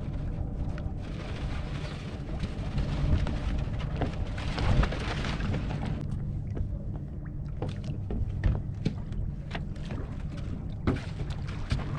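Small speedboat's engine idling with a steady low hum, under irregular knocks and clunks of gear being handled on deck.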